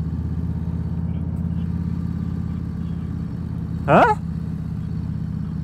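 Harley-Davidson Low Rider ST's Milwaukee-Eight 117 V-twin running steadily at low revs with a deep, pulsing rumble. About four seconds in, a brief rising vocal sound rises over it.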